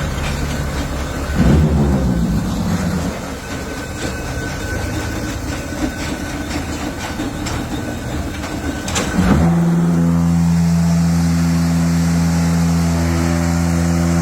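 A 2011 Çevrükler 8-block automatic pumice block machine running, with rattling and clanking. About nine seconds in, a sharp bang is followed by a loud, steady hum. That hum is typical of the mould vibrators shaking the mix to compact the blocks.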